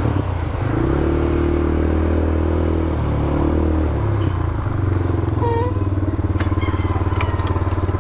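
A 200cc ATV engine running, its pitch stepping up and down several times under light throttle.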